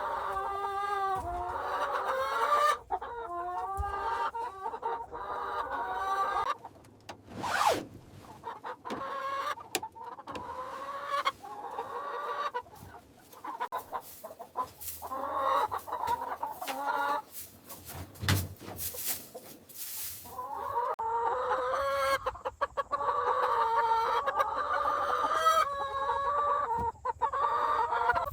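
Chickens clucking and calling in drawn-out, overlapping tones. The calls thin out through the middle, where scattered clicks and knocks take over, and then swell again near the end.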